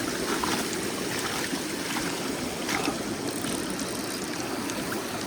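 Small mountain creek rushing steadily over rocks.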